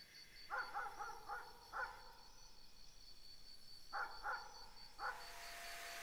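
A dog barking in short yaps, five in quick succession and then three more. About five seconds in, a sandblasting gun's air hiss starts, with a steady whistle, as it blasts white aluminium oxide.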